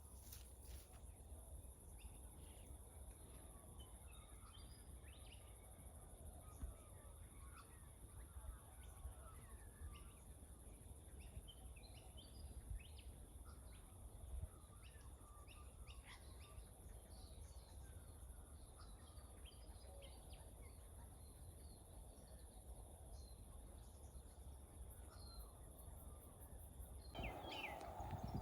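Near silence: quiet outdoor ambience with faint, scattered bird chirps. Near the end the background grows louder.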